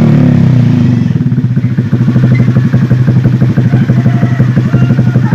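Honda Vario 150 scooter's single-cylinder engine through an aftermarket WRX exhaust, its revs dropping back in the first second and then idling steadily with a rapid, even exhaust pulse.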